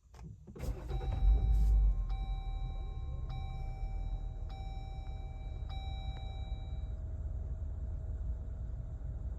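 Jeep Wrangler's 3.6-litre V6 starting about a second in, flaring up briefly, then settling into a steady idle, on an engine that has set a P0300 multiple-cylinder misfire code. A dashboard warning chime dings four times, about once a second, after the start.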